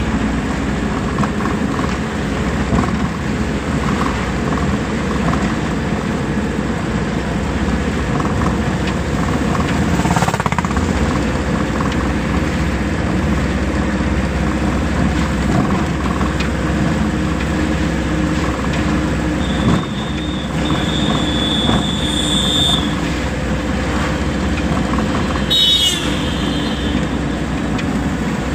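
A vehicle driving along a road: steady engine and road noise. A high steady tone sounds for about three seconds past the middle, and a short warbling tone follows a few seconds later.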